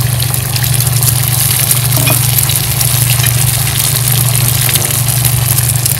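Beaten eggs sizzling with light crackling in a hot oiled nonstick pan just after being poured in, over a steady low hum.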